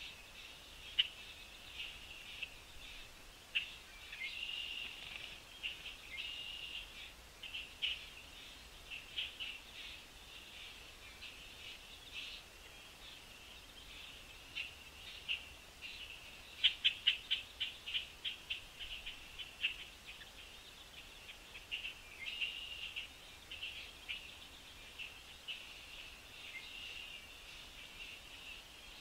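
Small songbirds chirping and twittering in short, high calls, with a quick run of sharp chirps about two-thirds of the way through.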